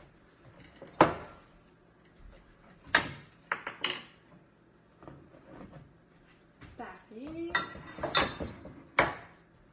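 Ceramic bowls knocking and clinking against each other as flour is tipped from a small bowl into a large mixing bowl: a sharp knock about a second in, a few more around three to four seconds, and a cluster near the end.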